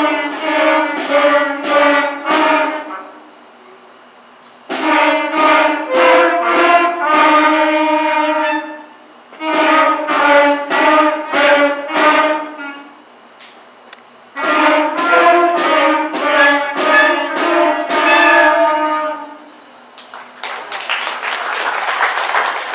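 Beginner clarinets playing a simple melody in four short phrases with brief pauses between them; applause starts near the end.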